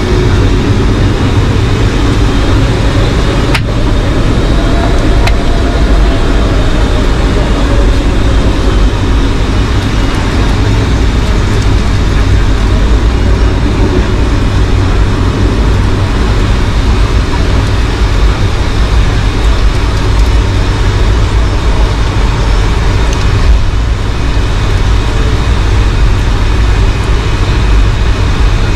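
Cabin noise inside a Boeing 757-200 on the ground before takeoff, its Rolls-Royce RB211-535E4 engines running at low power. A loud, steady rumble with a thin high whine on top.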